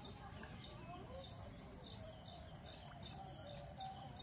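Birds chirping: short high chirps repeating about two or three times a second over faint background hiss.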